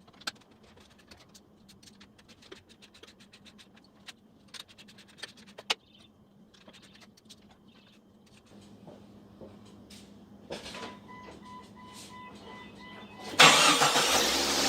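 Scattered light clicks and knocks of tool work under the hood, then a few seconds of rapid electronic beeping, and near the end the 1999 Jeep Cherokee XJ's engine cranks and starts, the loudest sound, as the freshly tensioned serpentine belt is tested.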